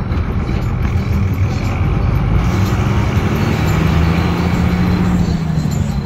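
Engine and road noise of a moving road vehicle, a steady low rumble whose engine note rises a little around halfway and falls back near the end.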